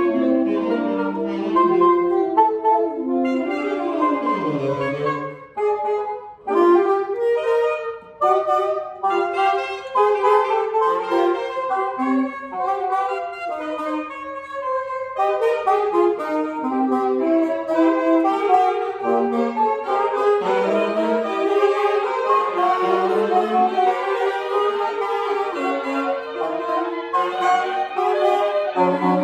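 Free-jazz ensemble improvisation for clarinet, two alto saxophones and two tenor saxophones, several horns playing overlapping lines at once, with a brief thinning of the texture and a falling low slide about five seconds in.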